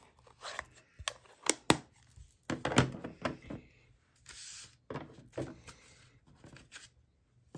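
A plastic stamp ink pad case is snapped shut, giving a few sharp clicks about a second in, followed by light handling knocks and a brief rustle of craft supplies on the desk.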